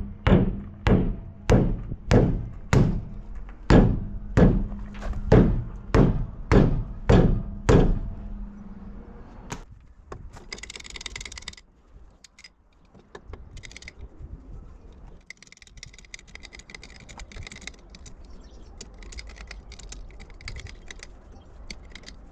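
Heavy metal-on-metal hammer blows on truck brake or wheel parts, about fifteen strikes at roughly two a second, each ringing briefly, stopping about eight seconds in. After that come lighter, rapid, intermittent metallic clicks and rattles.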